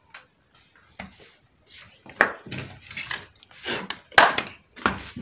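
A bunch of plantains being handled and moved about, with rustling and several sharp knocks and bumps.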